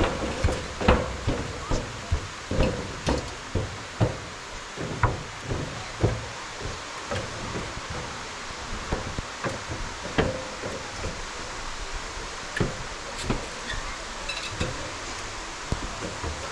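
Footsteps and knocks on a handheld action camera while walking slowly. There are irregular thumps about one or two a second, thinning out in the second half, over a steady background hiss.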